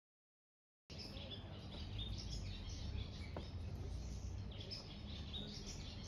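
Silence for about a second, then outdoor ambience: many small birds chirping over a low, steady background rumble.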